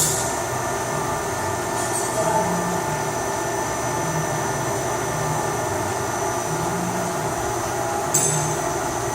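CNC machine's axis drives running through three-axis moves: a steady machine hum with a low whine that comes and goes every second or so as the axes start and stop. A short hiss sounds about eight seconds in.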